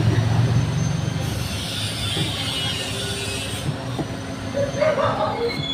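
Large knife cutting vegetables on a wooden chopping board, a few light knocks, over a steady mechanical background noise with a low hum that fades after the first second and a thin high whine that slides down near the end.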